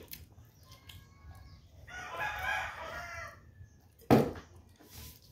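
A rooster crows once, a wavering call lasting a little over a second, about two seconds in. Faint clicks of spoon and dishes, and a sharp knock on the wooden table about four seconds in, louder than the crow.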